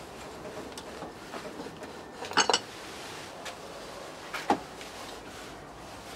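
Metal parts or tools clinking against each other: a quick cluster of ringing clinks about two and a half seconds in, and a single sharper clink near four and a half seconds, over a low steady hiss.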